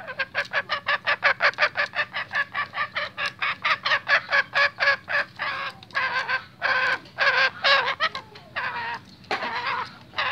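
Male junglefowl giving restless, agitated cackling calls: a fast run of short clucks, about five or six a second, then from about six seconds in a few longer, drawn-out calls.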